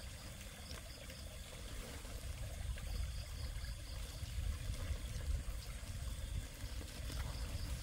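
Nylon net bag and woven plastic sack rustling as they are handled, over a steady low rumble, with faint high chirping in short runs a few times.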